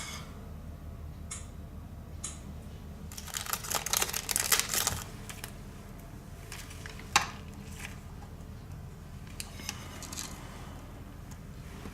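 Light clicking and clattering of small hard objects, with a busy cluster about three seconds in and one sharp click a little past the middle, over a steady low hum.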